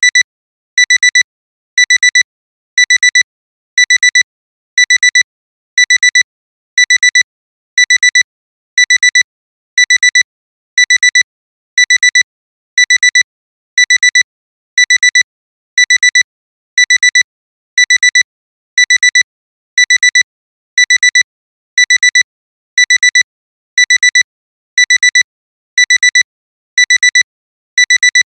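Digital alarm clock ringing: clusters of quick, high-pitched electronic beeps, repeating about once a second.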